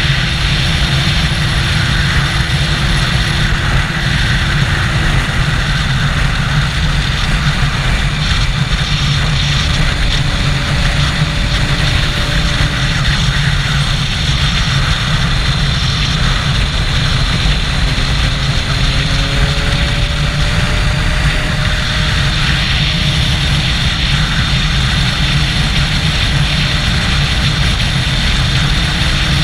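Triumph Daytona 675's three-cylinder engine with an Arrow exhaust running steadily at highway cruising speed, under heavy wind rush over the camera microphone. A few faint, slow changes in engine pitch come and go.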